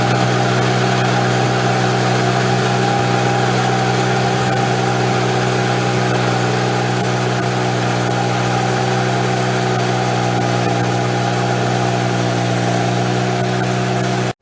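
Wood-Mizer LX150 bandsaw sawmill running, its engine holding a steady, even note throughout, then stopping abruptly at the very end.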